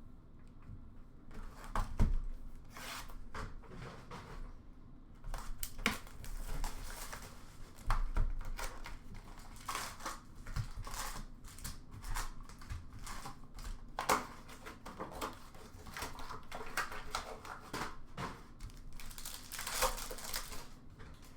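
Upper Deck hockey card packs being torn open, with irregular crinkling and tearing of the foil wrappers and cards being handled.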